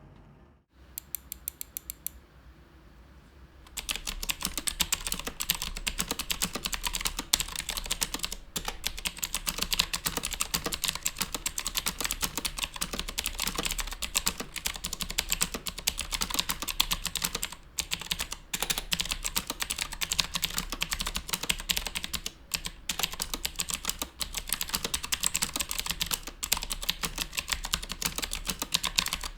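Aula F2058 mechanical keyboard being typed on fast, a dense run of key-switch clicks and clacks. It starts with a short string of quick clicks, then after a brief pause goes into continuous typing with a few short breaks.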